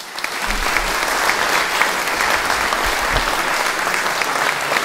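Audience applauding, a hall full of people clapping steadily.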